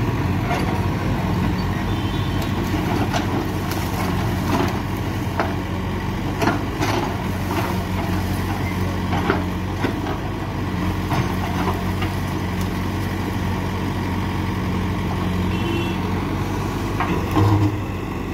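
JCB backhoe loader's diesel engine running steadily under load as the backhoe bucket digs into very hard, rocky ground, with irregular knocks and scrapes of the bucket on stone. The engine surges briefly louder near the end.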